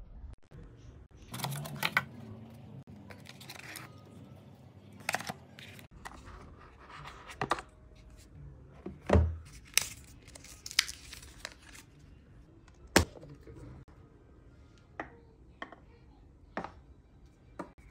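Hands handling smartphone packaging and a phone case: crinkling and rustling with scattered clicks and knocks of cardboard and plastic. There is a thump about nine seconds in and a sharp click about thirteen seconds in.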